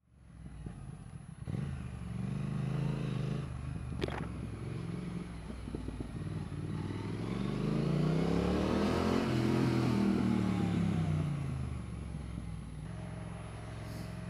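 Triumph Thruxton R's 1200 cc parallel-twin engine running under way, climbing in pitch as it accelerates to a peak about two-thirds of the way through and then dropping back as the throttle eases. A single sharp click sounds about four seconds in.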